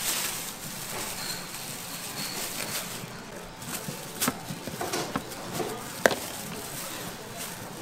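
Restaurant kitchen noise: a steady hiss with scattered sharp knocks and clinks, the loudest about four and six seconds in.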